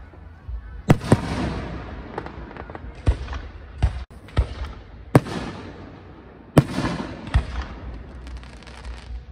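Aerial fireworks display: about seven sharp shell bursts, each trailed by an echo and crackle, over a low background rumble.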